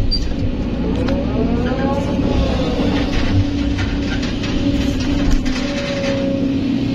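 Kobelco SK200 hydraulic excavator's diesel engine running under load, heard from inside the cab, with the hydraulic pump's whine rising and falling as the boom and bucket swing back from the truck.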